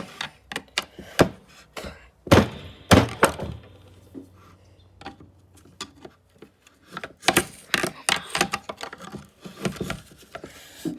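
Irregular knocks and thunks of a tool striking at the stuck motor stator of a Bosch hammer during disassembly, a few sharp loud hits among many lighter ones; the stator does not come free.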